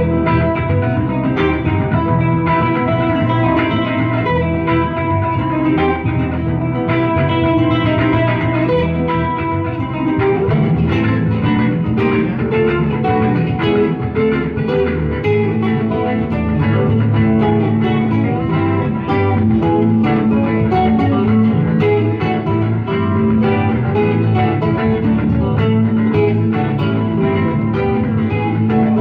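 Live instrumental guitar trio playing: an acoustic and an electric guitar pick interwoven lines over low bass notes. About ten seconds in, a high held line drops out and the low notes grow stronger.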